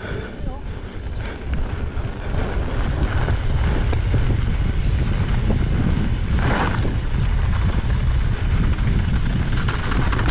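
Wind buffeting the helmet camera's microphone as a mountain bike rides fast down a gravel trail, with the tyres rolling and crunching on the loose surface underneath. The rumble grows louder over the first few seconds and then holds steady.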